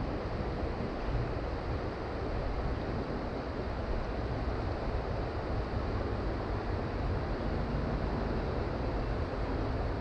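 Steady rushing noise of a creek running high and fast.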